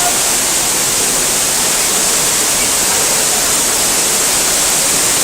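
Waterfall in a rocky gorge, a steady loud rush of falling water.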